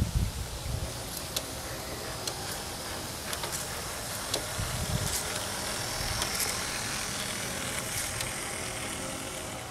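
A pair of G-scale model diesel locomotives running past on garden-railway track: a steady motor and gear whir with scattered clicks of the wheels on the rails, louder as they go by and easing off as they move away. A couple of low thumps come near the start.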